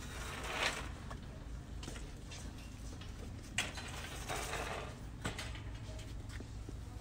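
Rustling handling noise, twice, with a few light clicks, over a steady low hum.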